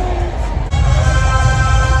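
Loud music with a heavy bass beat. About two-thirds of a second in, it cuts to a louder passage with several steady held tones.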